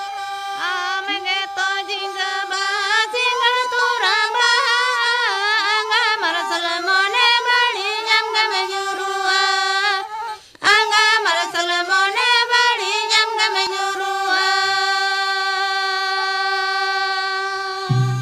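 A woman singing a slow, ornamented melody over a steady held drone, with a short break about ten seconds in. After about fourteen seconds the voice drops away and the drone is held on its own.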